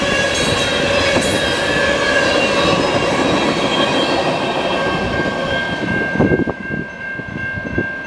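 Freight cars of a Canadian National freight train rolling past: steel wheels running on the rails with steady high-pitched squealing tones over the rumble. About six seconds in the last cars pass, the rumble drops off, and a few sharp clicks of wheels over the rail joints follow while the high tone lingers.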